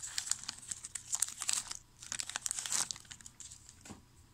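A trading card pack's wrapper crinkling and tearing as it is ripped open. The noise comes in crackly bursts over the first three seconds, followed by a single light tick near the end.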